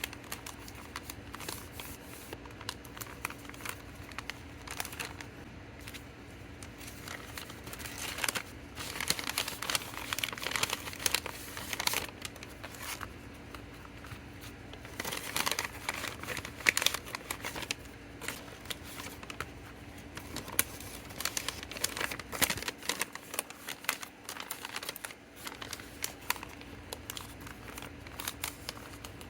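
Plastic packaging crinkling and rustling as small orders are packed by hand, with irregular crackles and clicks.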